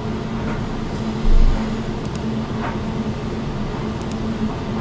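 Steady low background hum, with one dull low thump about a second and a half in and a couple of faint high ticks later.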